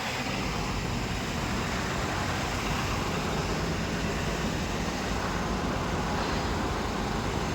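Asphalt milling machine running steadily: a continuous, even engine and machinery noise with no breaks.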